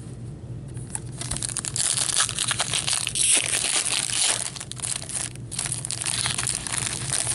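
Foil wrapper of a hockey card pack being torn open and crinkled by hand, a dense crackling that starts about a second in.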